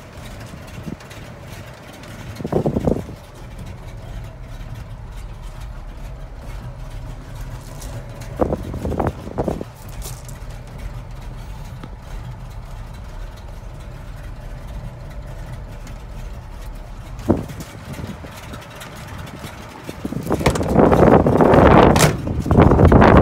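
1960 Ford pickup truck's engine idling steadily, with a few short knocks and bumps of handling. Loud wind rush on the microphone near the end.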